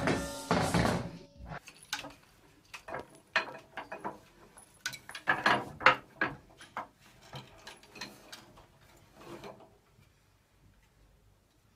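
Scattered light knocks and clicks of a rope ladder's wooden rungs as a cat climbs it, dying away about ten seconds in.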